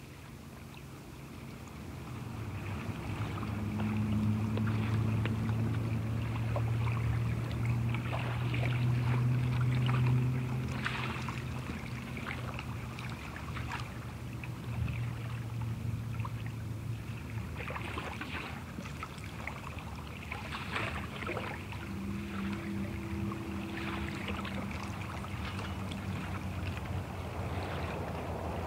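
Recorded ocean water, lapping and splashing, over a low steady drone, fading in over the first few seconds, from a new age ocean-sounds cassette.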